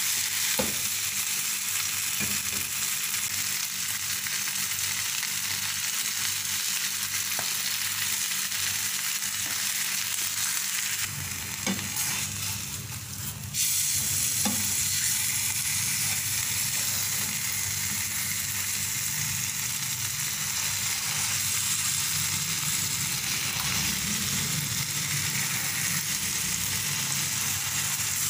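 Marinated chicken piece sizzling steadily in oil on a flat tawa over low heat, with a few taps and scrapes of a metal slotted spatula pressing it against the pan.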